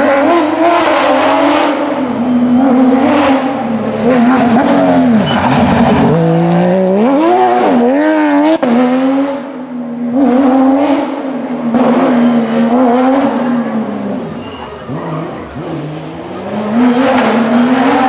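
Porsche 911 GT3 rally car's flat-six engine at full throttle through the gears, its pitch climbing and dropping with each shift and lift. About six seconds in comes a run of quick up-and-down swings in pitch. The sound fades briefly twice as the car goes by, then picks up again.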